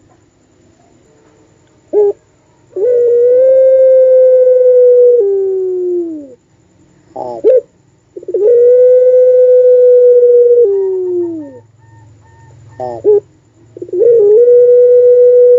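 Puter pelung dove cooing: three long drawn-out calls. Each starts with a short note, holds one steady tone for a few seconds, then slides down in pitch at the end. The last call is still running at the close.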